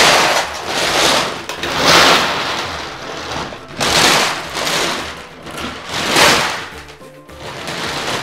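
Loose jelly beans rattling and pouring in four bursts, about two seconds apart, as they are swept or tipped off a table.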